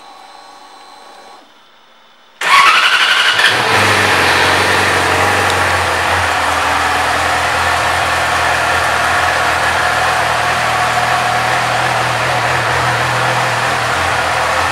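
2017 Yamaha YZF-R6's 599 cc inline-four started cold from the key. After a faint hum stops, the starter cranks briefly about two seconds in and the engine catches with a quick rise in revs, then settles into a steady idle.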